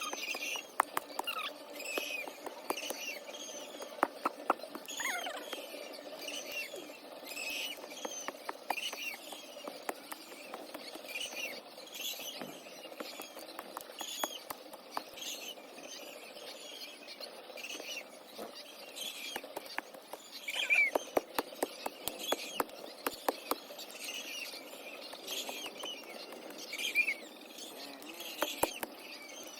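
Poultry chicks cheeping continuously in short, high, often falling peeps, with scattered sharp clicks and taps that come thick and fast about two-thirds of the way through.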